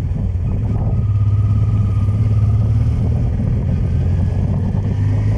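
1996 Honda Transalp's V-twin engine running steadily under way, a little louder from about a second in, with wind and road noise.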